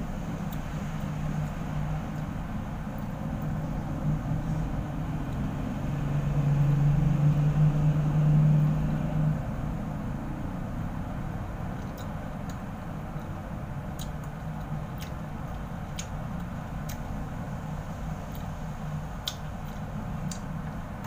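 A steady low mechanical hum, which swells for a few seconds in the first half and then settles back. Over it, through the second half, come scattered small wet mouth clicks and smacks as segments of santol pulp are eaten off the seeds.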